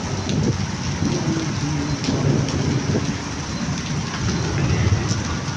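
Steady rain falling, with scattered drops striking close by.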